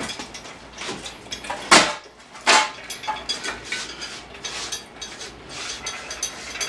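Irregular metallic clanks and rattles from a shop engine hoist and its lifting chain as it handles the engine, with two louder clanks just under a second apart about two seconds in.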